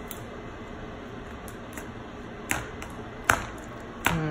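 Metal kitchen tongs clicking against a bowl while turning battered chicken in seasoned flour: a few sharp clicks, the loudest about three seconds in, over steady background noise.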